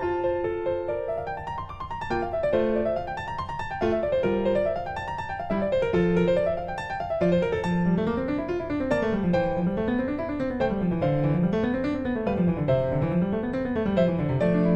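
Background piano music playing fast rising and falling arpeggio runs.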